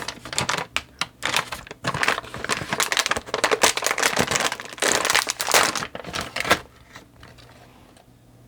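Plastic snack wrapper being crinkled and handled, a dense run of crackles that stops about six and a half seconds in.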